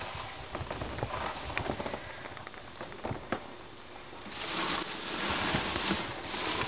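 Dry hay rustling and crackling, with scattered small ticks and patters, growing louder and denser about four seconds in.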